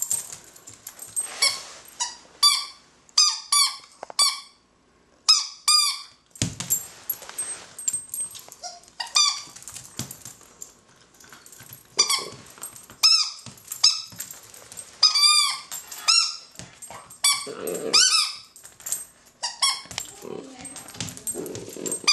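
A purple squeaky toy squeaking over and over as a dachshund puppy bites and chews it. The squeaks are short and high-pitched, each rising and falling, and come in quick runs of a few at a time with short pauses between.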